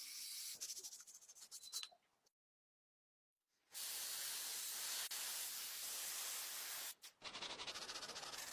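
Hissing noise in three separate stretches, each starting and stopping suddenly, with dead silence between them; the middle stretch is long and steady.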